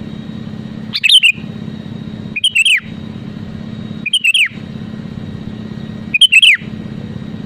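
Sooty-headed bulbul calling: four short, quick whistled phrases about one and a half to two seconds apart, each ending in a falling note, over a steady low hum.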